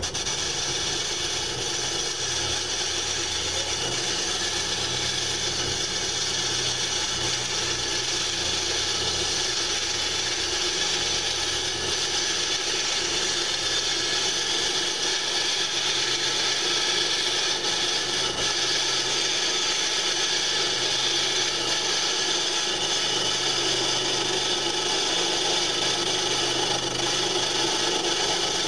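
Small metal lathe running, its high-speed steel tool in a diamond tool holder cutting the edge off a spinning cylinder cover: a steady scraping hiss over the motor's hum.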